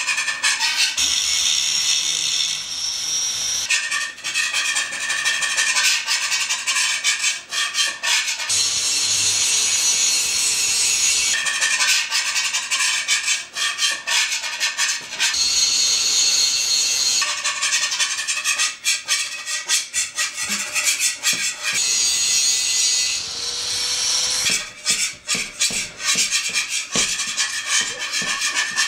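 A run of harsh scraping and rubbing noises, one texture after another, switching to a new kind of grating sound every two to four seconds.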